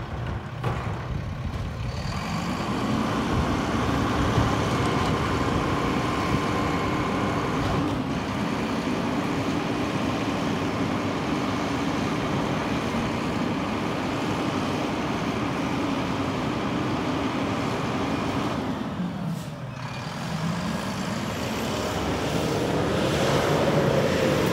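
Mack LR rear-loader garbage truck's diesel engine running at a steady raised idle with a steady hum, as when the rear packer is cycling. About nineteen seconds in the hum drops away, then the engine revs up with a rising pitch as the truck pulls away.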